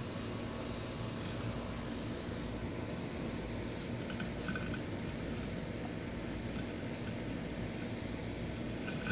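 Insects chirping in a steady, slowly pulsing high trill over the faint, steady hum of a Husqvarna Automower robotic lawn mower cutting grass.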